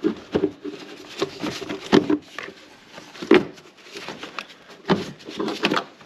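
Parts being worked loose by hand in a car's engine bay: a handful of sharp knocks and clacks with scraping and rattling between them.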